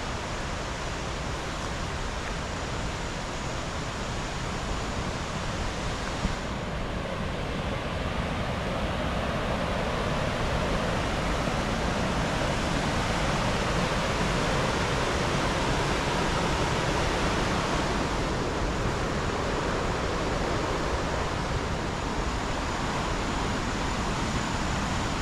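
Housatonic River rapids rushing in a steady wash of water noise, which grows a little louder partway through.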